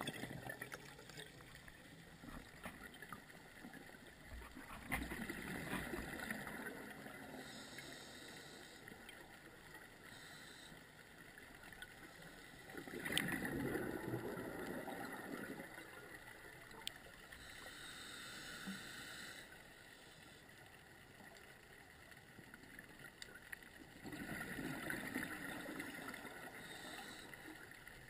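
Scuba diver's exhaled breath bubbling out of the regulator underwater, three bursts of bubbles about ten seconds apart, with a fainter hiss in between.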